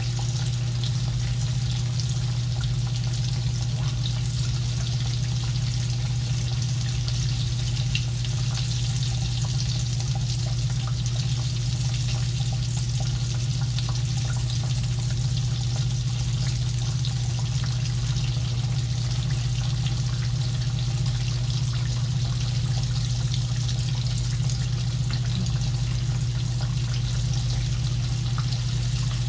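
Potato-filled corn tortilla tacos frying in shallow oil in a skillet: a steady sizzle with fine crackling. Under it runs a steady low hum.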